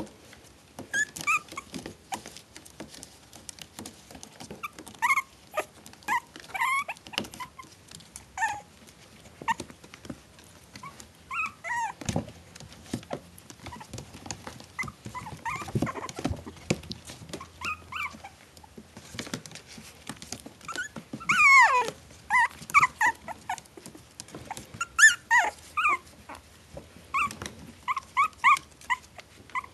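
Four-week-old Maltese–Shih Tzu cross puppies whimpering and yipping in many short, high-pitched cries, one longer falling cry a little past the middle, with soft rustling and scratching between the cries.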